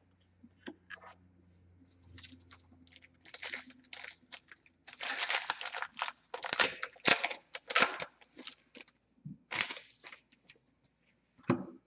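Hockey card pack wrapper being torn open and crinkled, in irregular rustling, crackling bursts.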